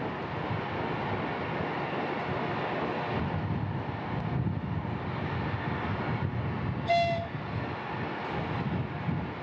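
Steady mechanical rumble from the Soyuz launch pad's service gantry as it swings in around the rocket. A short horn-like tone sounds once, about seven seconds in.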